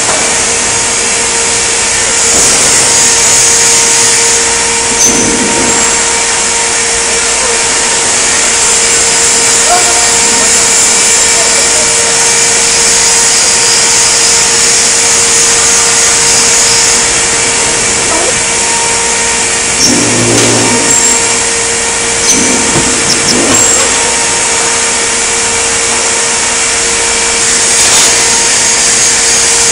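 Steady machinery noise in a sheet-metal shop: a constant hum over a loud hiss, with a few short metallic clinks and a low thud about two thirds of the way through.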